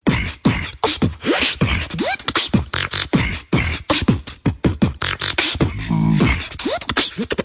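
Beatboxing: a fast run of sharp mouth clicks and deep thuds, many with quick falling pitch sweeps, and a buzzing held tone about six seconds in.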